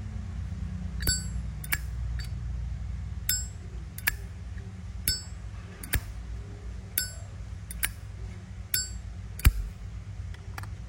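Zippo lighter lid flipped open and snapped shut over and over. The openings give a bright, bell-like ringing clink and the closings a short click, about five open-and-shut cycles. The sharpest click comes near the end. The lid is tuned for the bell-ringing sound that collectors prize.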